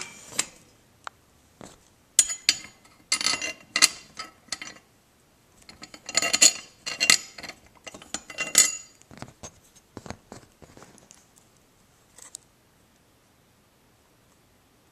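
Metal hardware on a drum throne and antenna mount being handled, making bursts of clinking and rattling that thin out to a few scattered clicks.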